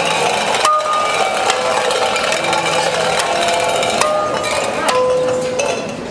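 Percussion costume being played by hand and stick: irregular clinks and knocks on hanging metal cans and other objects, several strikes ringing out as clear bell-like notes at a few different pitches, the loudest about a second in and again about four seconds in.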